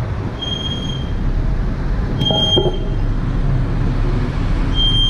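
BMW M Sport brakes (blue calipers) on a 2016 F32 435i xDrive squealing at low speed under light braking: a sharp, thin, high-pitched squeal comes three times, briefly, over the low rumble of the moving car. The owner reports the squeal has been there all year in every weather.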